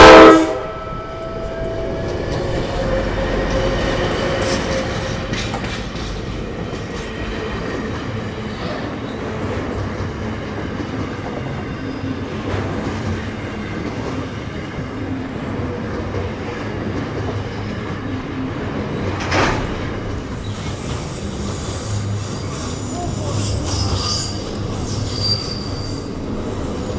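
Freight train passing close by, hauled by a diesel locomotive: a loud horn blast cuts off just at the start, then the locomotive and a long rake of mostly empty container flat wagons rumble past with wheel clatter, a single knock a little before two-thirds through, and a high wheel squeal near the end.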